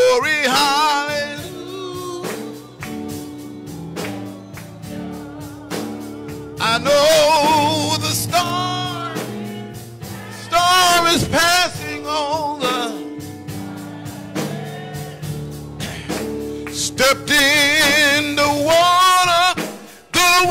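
Gospel song: a man singing long held notes with heavy vibrato over electric keyboard chords, with hand claps keeping the beat.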